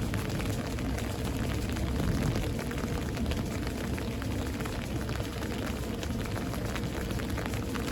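Steady rain during a thunderstorm, with many close drops ticking and a low rumble underneath that swells briefly about two seconds in.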